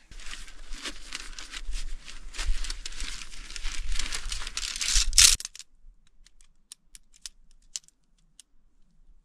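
Wild Country Helm 1 tent's nylon fabric and stuff sack rustling and crinkling loudly as they are handled and unpacked; this stops abruptly about five seconds in. Then come a few light, separate clicks as the shock-corded tent pole sections are snapped together.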